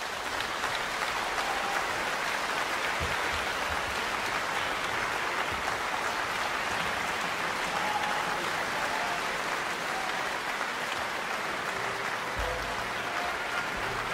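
Large concert-hall audience applauding steadily as the symphony movement ends.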